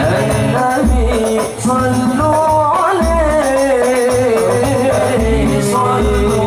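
Al-Banjari sholawat group performing: men's voices singing a devotional melody into microphones over a rhythm of rebana frame drums.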